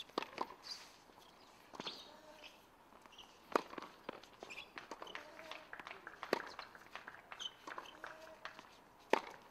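Tennis ball being struck by rackets on a hard court: three sharp pops about three seconds apart, the last one the loudest, with fainter knocks and scuffs in between.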